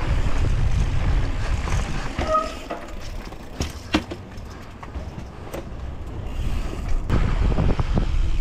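Mountain bike riding down a dirt downhill trail: wind rushing over the camera microphone and tyres rolling over the ground, with sharp knocks and rattles from the bike. The knocks are clearest a few times between about three and a half and seven seconds in. The rush eases in the middle and grows again near the end.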